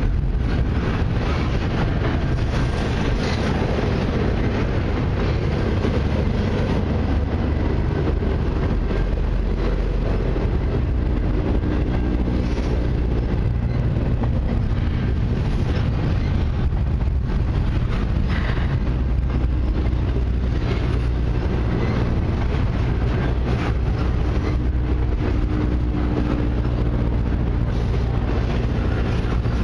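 Double-stack intermodal container well cars of a freight train rolling past: a steady rumble of steel wheels on the rails, with scattered clicks and a faint humming tone that comes and goes.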